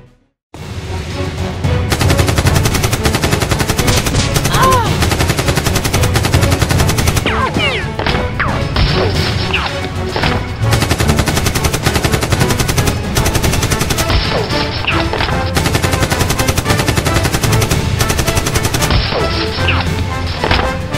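Sustained rapid automatic gunfire, a dubbed gun sound effect rather than the Nerf blasters' own sound. It starts about half a second in after a brief silent gap and carries on steadily, with occasional short whistling glides over the shots.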